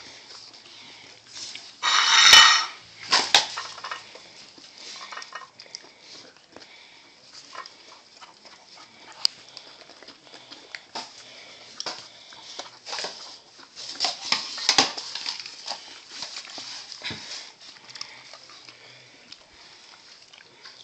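Basenjis eating steak off plates on a tile floor: licking, chewing and the plates clinking and scraping against the tile in short irregular clicks. There is a loud clatter about two seconds in and another busy run of scrapes about fourteen seconds in.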